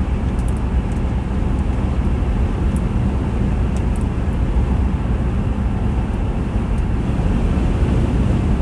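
Steady road noise of a car driving, heard from inside the cabin: a low, even rumble of engine and tyres.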